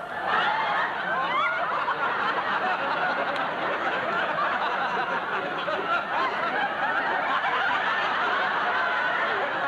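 Studio audience laughing, a crowd of many voices that breaks out suddenly and keeps up steadily at full strength.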